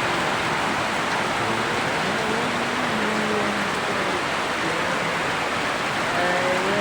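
Heavy typhoon rain falling, a steady dense hiss.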